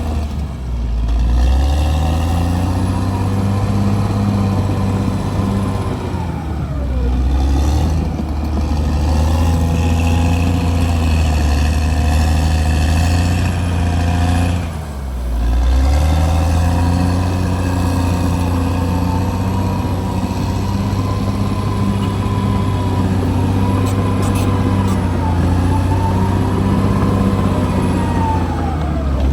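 CAT D6R bulldozer's diesel engine running hard, its note dipping and climbing back three times as the engine lugs and recovers.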